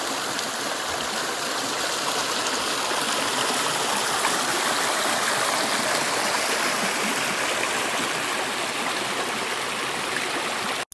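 Creek water rushing and babbling over rocks in a small cascade, a steady, fairly loud rush.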